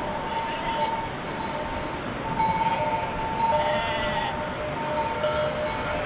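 Many sheep bells on a grazing flock clinking and ringing without a break, with a sheep bleating about three and a half seconds in.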